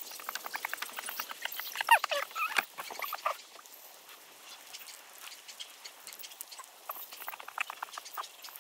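Dry prairie grass burning: a dense run of quick crackles and pops, thinning out in the middle and picking up again near the end. A short pitched squeak or chirp is mixed in about two seconds in.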